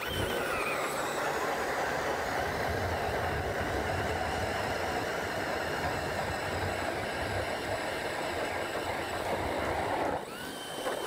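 Cordless DeWalt drill driving an ice auger through lake ice: a loud, steady cutting noise of the blades in the ice over the drill motor's whine, which drops a little in pitch as the blades bite in. About ten seconds in, the auger comes free of the ice, the motor whine rises as it spins unloaded, then stops.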